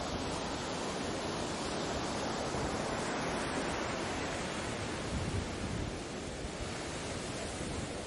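Steady wash of ocean waves on the shore, a continuous rushing noise with no distinct breaks, easing slightly near the end.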